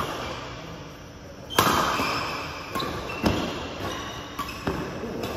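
Badminton rackets striking a shuttlecock in a fast doubles rally: several sharp hits, the loudest about one and a half seconds in, each ringing briefly in the large hall.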